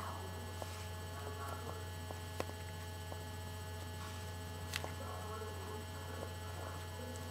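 A steady low electrical hum, with faint ticks and two sharp clicks, about two and a half and nearly five seconds in, as hands gather a doll's hair into a ponytail with a rubber band.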